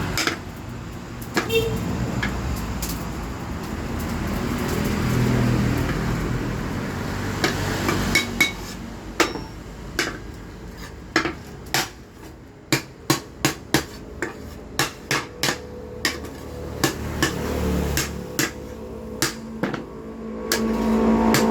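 Blacksmith's hammer striking a steel hoe blade being reworked: a few separate metal strikes at first, then a long run of blows at about two a second through the second half, over a steady low rumble.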